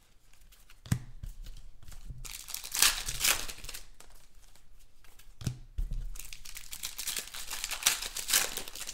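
Foil trading-card pack, a 2016 Panini Contenders football pack, being torn open and crinkled by hand, in two spells of tearing and rustling. A couple of sharp knocks come about a second in and past the middle.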